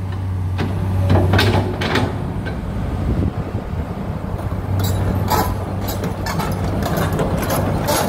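Komatsu PC200-8 hydraulic excavator's six-cylinder diesel engine running with a steady low drone, with scattered short clanks and knocks over it.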